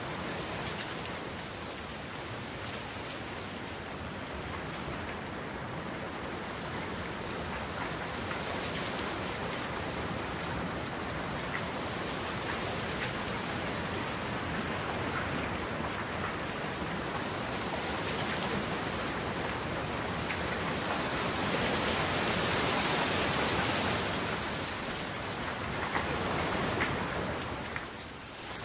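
Steady rain falling, an even hiss of drops that grows louder about three-quarters of the way through and eases briefly near the end.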